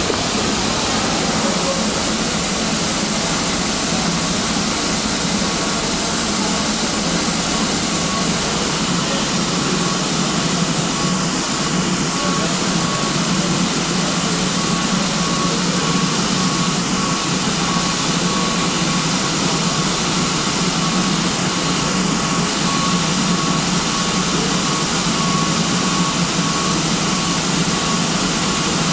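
Steam escaping from a standing BR Britannia-class Pacific steam locomotive: a steady hiss over a low rumble, with a faint high steady tone joining about five seconds in.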